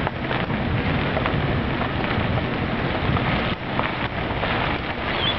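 Vehicle driving along a sandy dirt road: a steady noise of tyres on the unpaved surface and a running engine, with a few short knocks.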